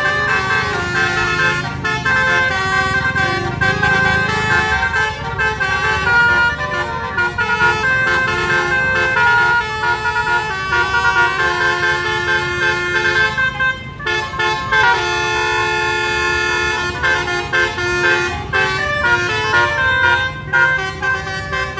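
Musical air horn ('telolet' horn) playing a tune of quick stepped notes, with a short break about fourteen seconds in. Vehicle engines run underneath.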